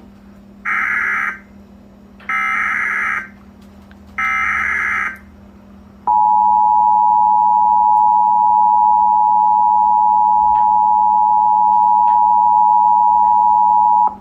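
Emergency Alert System SAME header: three short bursts of screeching digital data tones, encoding the Flash Flood Warning, then about six seconds in the EAS two-tone attention signal (853 and 960 Hz together), held loud and steady for about eight seconds until it cuts off.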